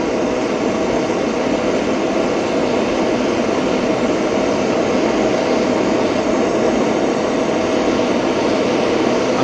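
Gas torch burning with a steady, even rushing hiss as its flame is worked around a buffer head and shank, heating them to silver-soldering temperature.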